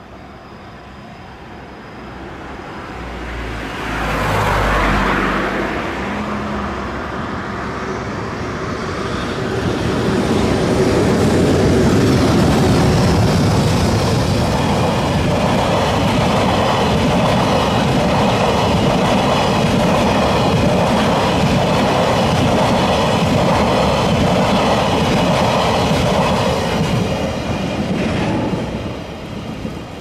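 Freight train of oil tank wagons passing over a level crossing: a first surge about four seconds in as the locomotive goes by, then a long steady rumble and clatter of tank-wagon wheels over the rail joints, fading away near the end. The crossing's warning bell rings faintly underneath.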